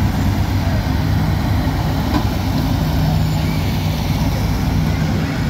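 Vehicle engine idling steadily: an even, low rumble with no revving.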